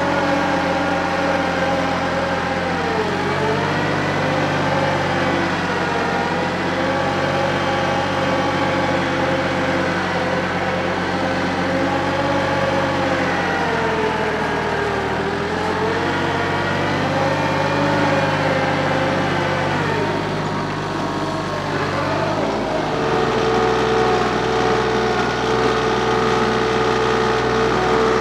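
Diesel compact tractor engine running steadily while grading, its note dipping briefly in pitch several times and recovering, then holding steady.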